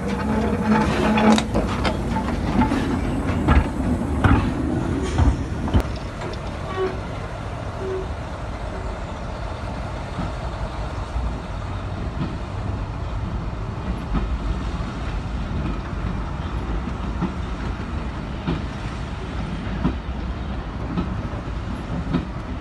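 Steam-hauled passenger train moving slowly behind the O2 class 0-4-4T tank engine: loud clanks and knocks of wheels over rail joints in the first several seconds, then a steady rumble as the coaches roll away.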